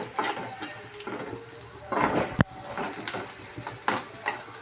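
Onions sizzling in hot oil in a kadai, with a spatula scraping and clicking against the pan. There is one sharp knock about two and a half seconds in.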